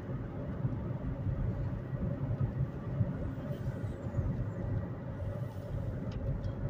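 Steady road noise and engine rumble inside a moving car's cabin, with tyres running on wet pavement.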